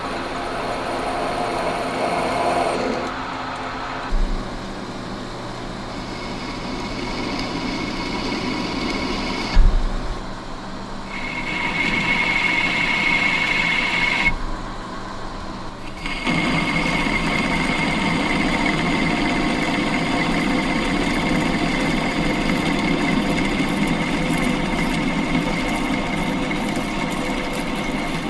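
Metal lathe running while a twist drill in a tailstock drill chuck bores into the end of a small spinning metal bung. The sound changes abruptly several times, with a sharp knock about ten seconds in and a steady whine through the later part.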